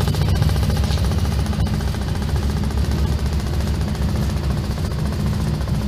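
Powermatic Model 87 20-inch vertical band saw, just started, running steadily under its 2 hp three-phase motor with a fast, even rattle.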